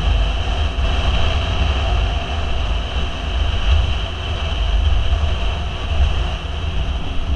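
Wind buffeting the mic of a camera on a moving motorcycle, a heavy uneven low rumble, mixed with the steady drone of the motorcycle's engine at cruising speed.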